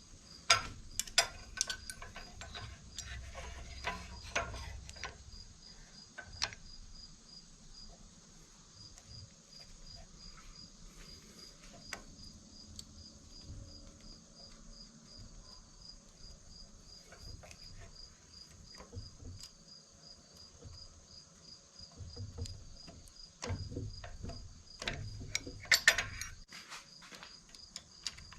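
A cricket chirps steadily in a rapid, even pulse. Over it come sharp metallic clicks and clanks in two bursts, one near the start and one near the end, from hand tools working the valves of a KA24DE cylinder head with a valve spring compressor.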